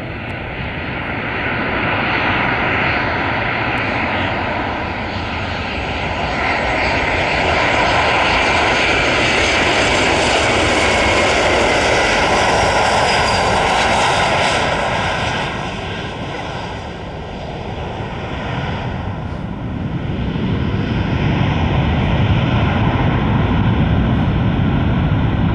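Boeing 737 airliner's jet engines as it comes in to land: a rushing jet noise that builds to its loudest about halfway through, eases off, then swells again with a deeper rumble near the end.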